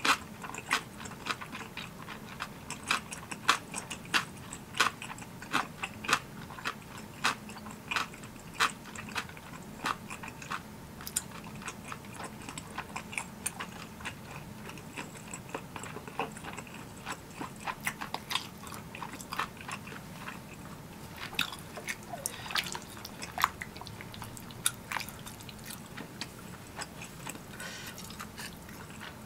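Close-miked chewing of spicy tteokbokki: short, sharp, wet clicks and smacks of chewy rice cakes in the mouth. The clicks come quickly at first and thin out in the second half.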